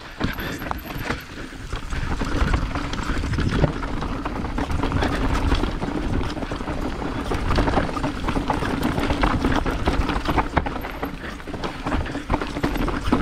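Nukeproof Giga mountain bike riding rough singletrack: tyres rolling over dirt, roots and rocks, with the chain and bike rattling and frequent sharp knocks, over a steady hum.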